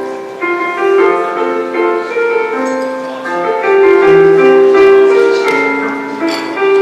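Background piano music: a slow melody with held notes over a simple accompaniment.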